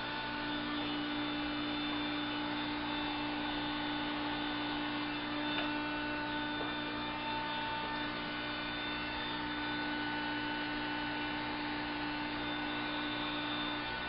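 Steady electrical hum with several constant tones, unchanging throughout.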